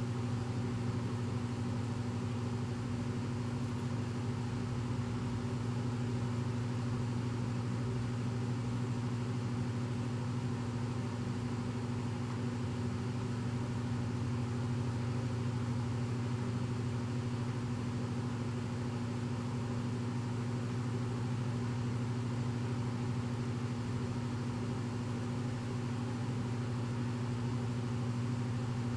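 Steady low mechanical hum, constant in pitch and level, with no change throughout.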